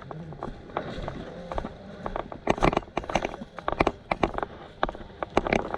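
Footsteps crunching irregularly on the ground as players walk.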